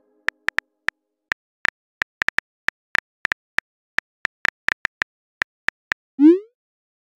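Simulated phone-keyboard key clicks, about two dozen quick irregular taps as a text message is typed, then a short rising swoop tone about six seconds in: the message-sent sound.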